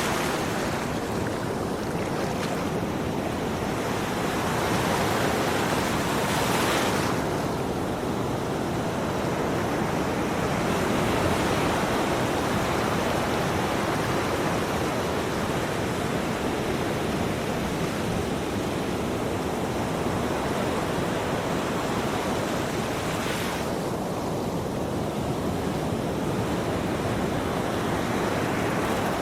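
Ocean waves washing onto a shore in a continuous rush of surf, swelling and ebbing slowly, with a brighter hiss of a wave breaking about 7 seconds in and again near the end.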